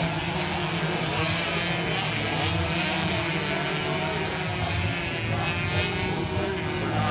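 Several 116cc racing motorcycles revving hard on the track, their high engine notes overlapping and rising and falling as the bikes approach and pass.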